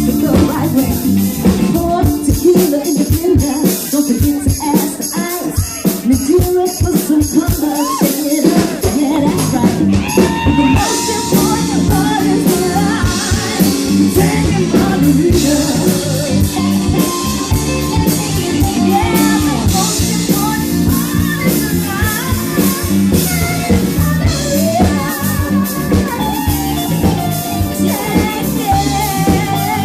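Live band music with drum kit and guitar. The sound grows fuller about ten seconds in, when the cymbals come in.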